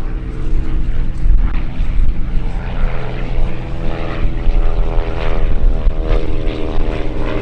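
Cessna O-1 Bird Dog pair, their Continental O-470 air-cooled flat-six piston engines and propellers droning steadily in flight, with a low rumble underneath. The engine note grows clearer about three seconds in.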